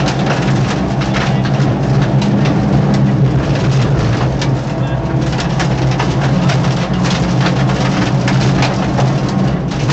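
Peugeot 205 rally car's 1.9-litre four-cylinder engine running steadily under load, heard from inside the cabin, with frequent sharp clattering knocks from the car over the stage surface.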